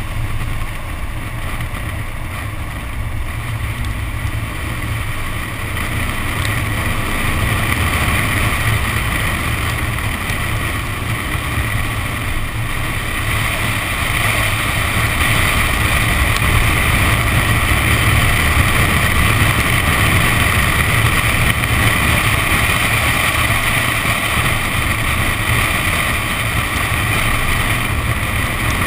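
Nissan 370Z's 3.7-litre V6 running at speed on a soaked track, heard from a camera mounted outside the car, mixed with the hiss of tyre spray and wind on the microphone. It is a steady din that grows louder through the first several seconds.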